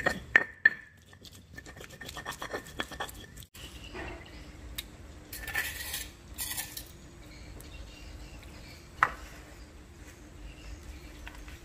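Stone pestle grinding and scraping spice paste in a flat stone mortar, with sharp stone-on-stone clacks. The grinding cuts off abruptly about three and a half seconds in, followed by quieter handling sounds and a single sharp clink about nine seconds in.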